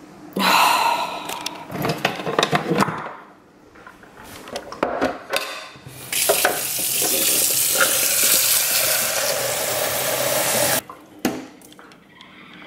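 Water running from a kitchen tap into the removable water tank of a Siemens EQ.6 plus s700 bean-to-cup coffee machine, a steady hiss for about four and a half seconds that cuts off abruptly. It follows plastic clatter as the empty tank is handled, and a click or two come after.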